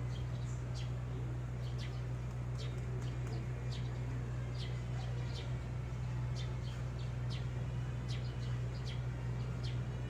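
Birds chirping, short high chirps at about one or two a second, over a steady low hum.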